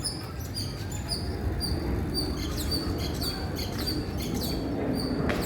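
Small birds chirping: many short, high, down-slurred chirps repeating several times a second, over a low background rumble.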